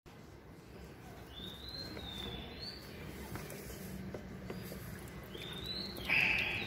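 Water sloshing and light clicks as musk turtles are handled in a shallow plastic tub, with a splash near the end as one turtle is lifted out of the water. A bird chirps in the background in short rising-then-falling calls, several in a row early on and again just before the splash.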